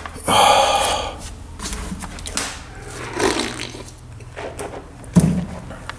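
A person drinking from a plastic cup, with swallowing and liquid sounds. There is a loud rush of noise about half a second in, and a single sharp knock about five seconds in.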